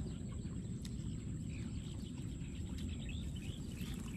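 Open-air ambience: a low steady rumble with a thin steady high tone over it, and a few faint bird chirps about three seconds in.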